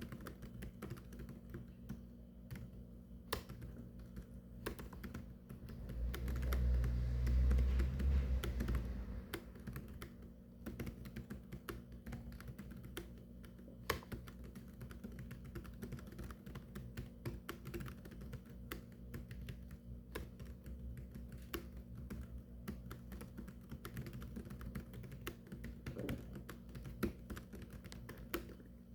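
Steady, irregular typing on a keyboard, rapid key clicks one after another. About six seconds in, a deep low rumble swells up under the typing for about three seconds, then fades.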